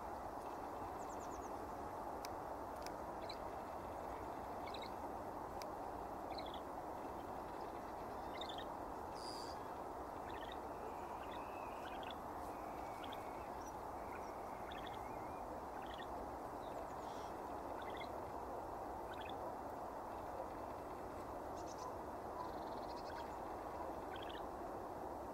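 Great grey shrike singing: a loose, spaced-out string of short high notes, with a few brief chattering phrases in the middle, over a steady background hiss.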